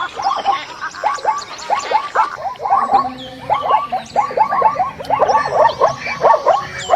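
An animal's rapid series of short yelping calls, each falling in pitch, several a second, with high bird-like chirps above them.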